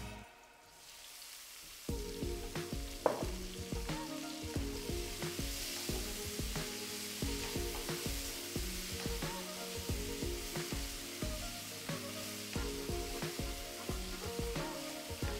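Zucchini cubes and halved cherry tomatoes sizzling in oil in a frying pan, stirred with a spoon that knocks against the pan, with one sharp knock about three seconds in. Background music comes in about two seconds in.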